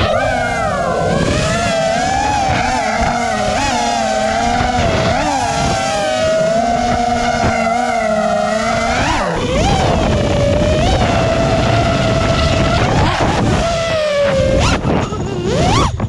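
FPV racing quadcopter's brushless motors and propellers whining, the pitch rising and falling with the throttle. A little before the end the whine drops and breaks up, then sweeps sharply up as the quad flips and punches out.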